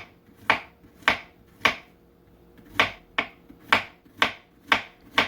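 Kitchen knife slicing a peeled green plantain into thin rounds, each cut a sharp tap, about ten in all at roughly two a second, with a brief pause near the middle.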